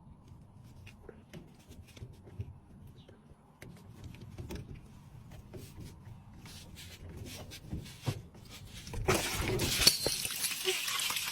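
Light clicks and clinks of hands working a hose clamp and drain hose off a washing machine's drain pump. About nine seconds in, water suddenly gushes out and keeps running: the water standing in the washer, which would not drain, is being let out.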